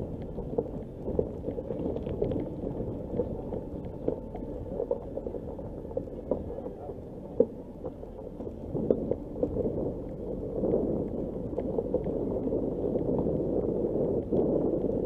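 Nissan Qashqai J11 driving over a loose gravel and rock dirt track: a steady low rumble of tyres and body, with many sharp ticks and clicks of stones crunching and flicking under the wheels.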